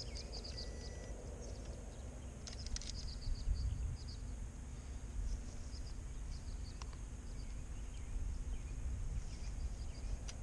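Outdoor ambience: a low, uneven rumble of wind on the microphone, with small birds chirping now and then.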